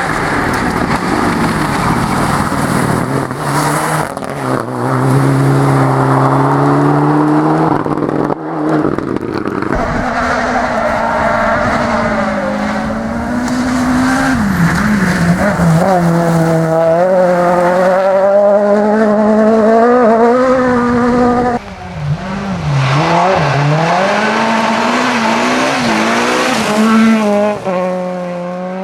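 Rally car engines revving hard, the pitch climbing and dropping again and again with throttle and gear changes, with sudden breaks about 8 and 22 seconds in.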